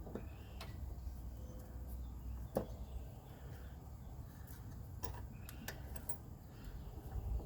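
Faint, scattered metal clicks and taps from hand tools being worked on a rusted-on lawn mower blade adapter with a two-jaw puller, the sharpest click about two and a half seconds in, over a low steady rumble.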